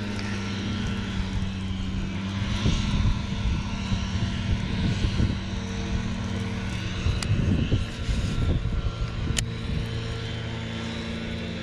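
Steady drone of working machinery, the noise of people working the grounds, with wind gusting on the microphone now and then.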